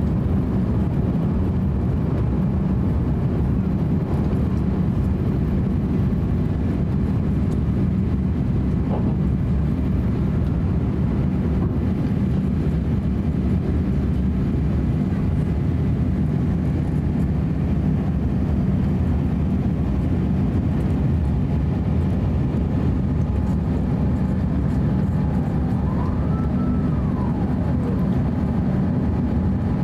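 Airbus A350-900 cabin noise just after takeoff: the Rolls-Royce Trent XWB engines at climb power and the rush of air, heard from inside the passenger cabin as a steady, low, unchanging roar. Near the end a faint tone rises and falls.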